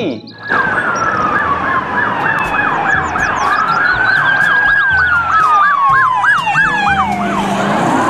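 Police car sirens, more than one at once: a fast yelp sweeping up and down about four times a second over a slower rising and falling wail. Near the end the yelp stops and a new wail rises.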